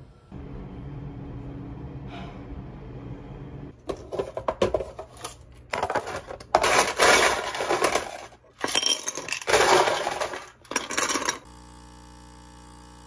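Ice cubes clattering and clinking into a glass mug in several uneven bursts. It opens with a steady low rumble, and near the end a capsule coffee machine starts a steady hum as it begins brewing.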